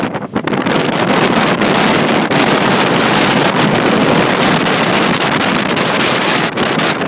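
Hurricane-force wind buffeting the microphone in a loud, gusting roar. It dips briefly just after the start, then holds steady.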